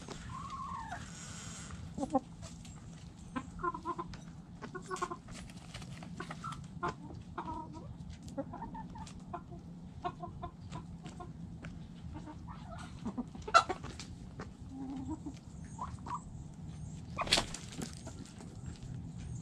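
Hens clucking softly in short, repeated calls while scratching and pecking in dry dirt, with many small clicks and a few louder sharp knocks.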